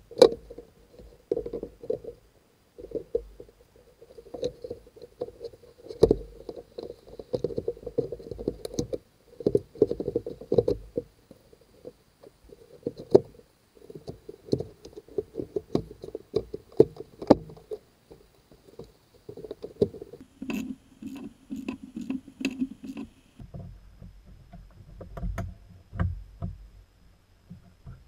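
Irregular knocks, clicks and rubbing of plastic and metal parts being handled and fitted, as a car radiator and its plastic fan shroud are worked back into the engine bay. A little past two thirds of the way in there is a short run of rapid, evenly spaced clicks.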